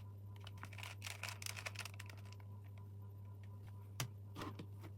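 Faint plastic clicking and rattling of a puzzle cube being handled and turned: a quick flurry of clicks about a second in, then a single sharper click near four seconds, over a steady low hum.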